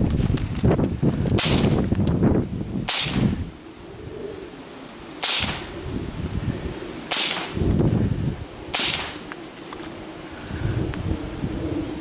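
.22 LR rifle firing five sharp shots spaced one and a half to two and a half seconds apart. Between shots there is thumping movement noise, heaviest in the first few seconds.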